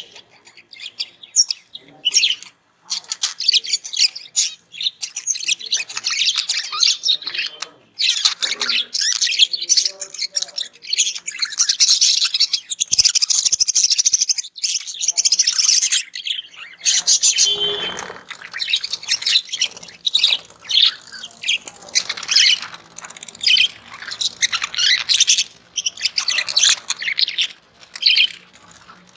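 Pet budgerigars chattering and warbling, a busy stream of rapid chirps and squawks with brief pauses.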